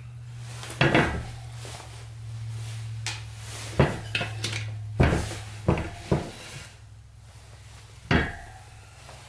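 Handling noises from moped tire work: about six sharp clanks and knocks as tire-prying tools and wheel parts are moved and set down, over a steady low hum.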